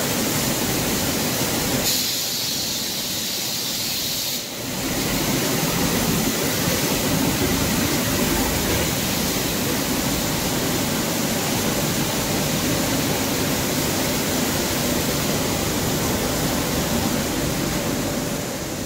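Steady rushing noise of rice mill machinery running. About two seconds in it briefly thins to a higher hiss.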